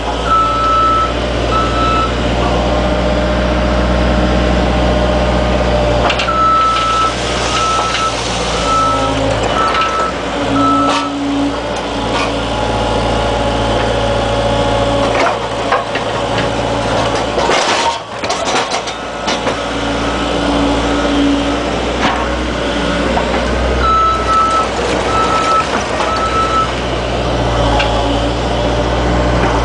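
Excavator's diesel engine running steadily, with a high-pitched travel or reversing alarm beeping in short runs of evenly spaced beeps that come and go several times, as the machine moves on its tracks. A few sharp metal clanks break in, one of them in the middle.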